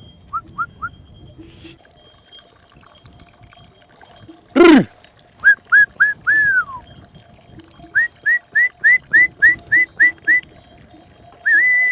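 A shepherd whistling to move his flock: short, quick whistled chirps in small groups, then a run of about ten at roughly four a second, ending in a long held whistle that rises at its end. Twice a loud, very short sweep falls steeply in pitch.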